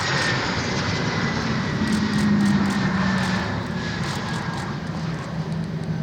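Airbus A321 airliner's jet engines passing on its landing approach: a steady, fairly loud rush of noise with a high whine that slowly falls in pitch as the aircraft goes by.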